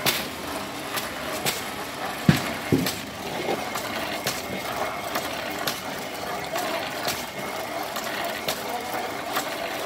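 Mechanical rice-pounding machine, a flywheel-driven wooden lever beam working a pestle into a mortar of young green rice, knocking in a steady rhythm about once every 0.7 seconds over a steady hum. Two heavier thumps come a little over two seconds in.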